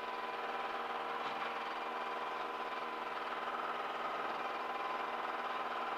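Light aircraft engine running steadily at low taxi power, heard through the intercom audio feed as an even hum with several steady tones.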